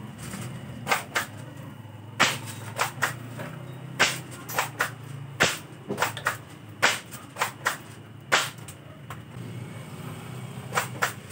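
Spring-powered airsoft pump-action shotgun, a Mossberg 590A1 replica, being racked and fired over and over: about a dozen sharp plastic clacks, often in quick pairs or threes, from working the pump and releasing the spring. A steady low hum runs underneath.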